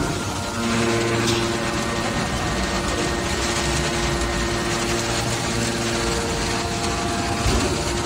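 Hydraulic power unit of a metal scrap shearing baler running steadily: a motor-driven pump hum made of several steady tones over a mechanical noise, with a brief click about a second and a half in.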